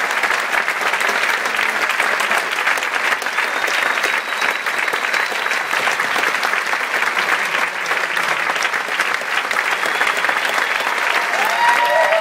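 Large theatre audience applauding steadily, a dense crackle of many hands clapping. Near the end a held whoop from someone in the crowd sounds over the clapping.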